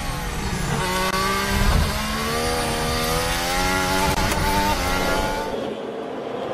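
Onboard sound of a Mercedes Formula 1 car's 1.6-litre turbocharged V6 hybrid engine: the note drops near the start as the car slows for a corner, then rises in pitch through the gears as it accelerates out. Near the end the engine note fades away.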